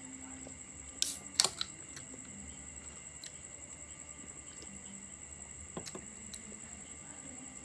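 A few sharp clicks and knocks of a metal drink can being handled on a wooden table: a cluster about a second in and lighter ones near six seconds as the can is set down. A steady high-pitched whine runs underneath.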